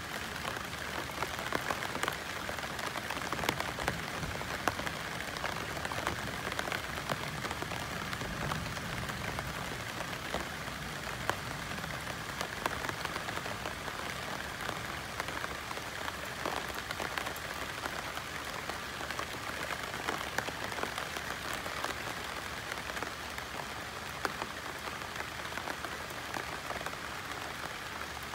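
Steady rain pattering on broad banana leaves, a dense hiss with many individual drops ticking on the leaves.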